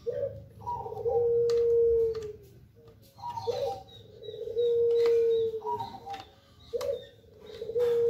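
A dove cooing three times, about every three seconds. Each call is a short higher note followed by a long, steady low coo. Faint clicks of plastic fan blades being handled come in between.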